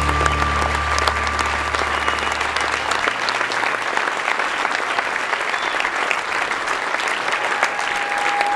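Grandstand crowd applauding, a dense even clatter of many hands clapping. A low held music chord fades out during the first three seconds.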